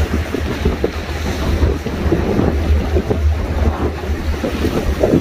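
Wind buffeting the microphone in a heavy, uneven rumble, over the wash of sea waves against the breakwater.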